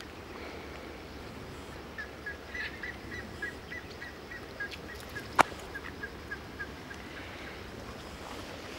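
A bird calling a long run of short, evenly spaced notes, about four or five a second, that fade out after about five seconds. A single sharp click about five seconds in is the loudest sound, over a steady low hiss.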